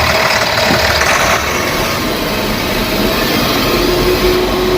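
Tata BS4 bus diesel engine idling steadily just after starting, running smoothly after the wiring and speed sensor were replaced, with no knocking.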